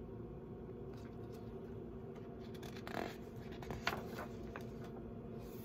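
Faint rustling and a few soft flaps of a hardcover picture book's pages being turned and the book being handled, strongest around the middle, over a low steady room hum.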